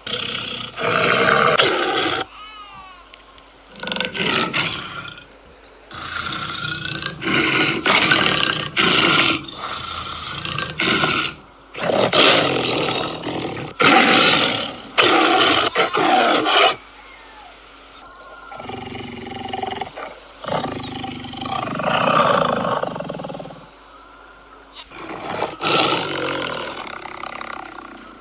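Tiger roaring over and over: a long series of loud, rough roars, each about a second long, with short quieter gaps between them.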